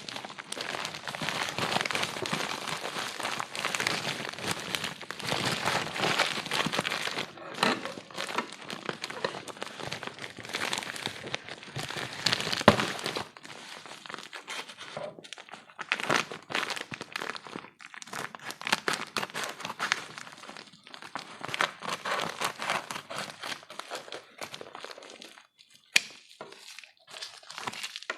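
Packaging being handled and opened by hand: plastic wrapping crinkling and crackling, with bits of tearing and a few sharp cracks.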